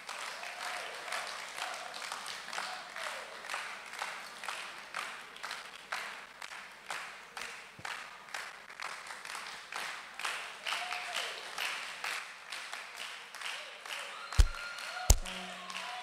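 Audience clapping in a steady rhythm, with faint voices under it. Near the end come two loud, deep thumps.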